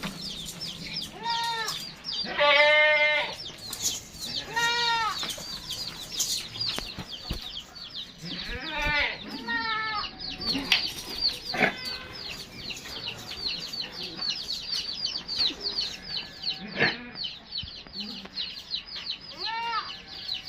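Goats bleating several times, the loudest call about two to three seconds in, with a steady patter of short high chirps behind.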